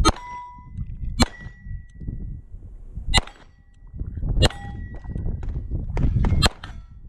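Beretta 92 pistol shots, about seven spaced one to two seconds apart, with three fired close together near the end. Several are followed by the clear ring of a hit steel target plate.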